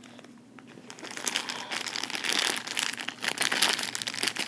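Clear plastic bag around a plush toy crinkling as hands work at it to open it. Fairly quiet for the first second, then dense, busy crinkling.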